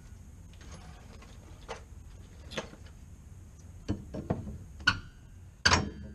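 Hand tools and metal suspension parts clinking and knocking, about six scattered strikes, the loudest near the end.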